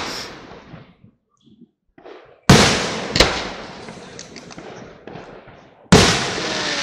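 Aerial fireworks shells bursting overhead. There is a loud boom about two and a half seconds in with a sharp crack just after it, both dying away over a couple of seconds. Another boom comes near the end, followed by a steady hiss.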